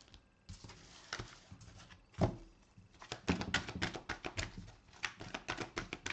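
A deck of oracle cards being shuffled by hand, with a few scattered card slaps at first, then a quick run of flicks and taps from about halfway.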